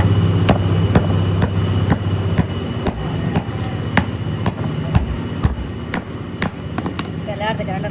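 Steady hammering in a workshop, about two even blows a second, with a low machine hum under the first couple of seconds.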